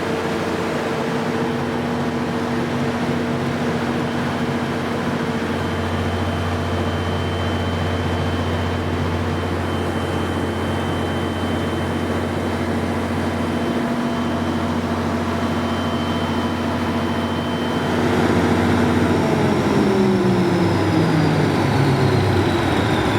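A Generac 600 kW diesel generator set's 12-cylinder Daewoo engine running steadily at its governed speed. About nineteen seconds in, its pitch starts to fall steadily as the engine slows down, as if it is being shut down.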